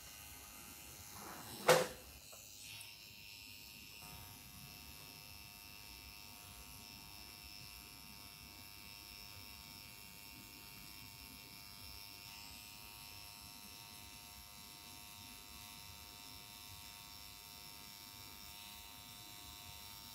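Permanent-makeup tattoo pen buzzing steadily as its needle works pigment into the lower lash line for an eyeliner tattoo. A single sharp click comes about two seconds in.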